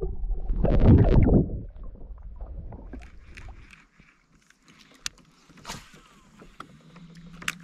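Water splashing and gurgling around an action camera as it is lifted out of the lagoon about a second in, followed by soft water sounds at the kayak and a few sharp clicks.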